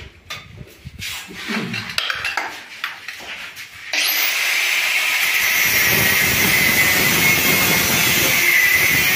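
Light knocks and handling of steel pipe. About four seconds in, a handheld angle grinder starts up and runs with a steady whine as its thin cutting disc cuts into a stainless steel handrail pipe.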